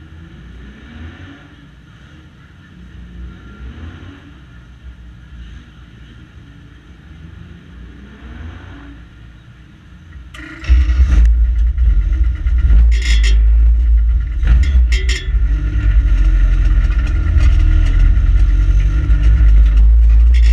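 Banger race car's engine heard from inside its stripped cabin: a low, fairly quiet running with faint revving rising in pitch now and then, then about halfway through suddenly loud as the car pulls away, a heavy rumble with a few sharp rattles.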